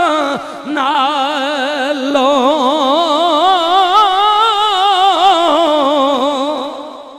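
A man's voice singing a long, drawn-out devotional phrase with a heavy vibrato. The phrase fades away near the end.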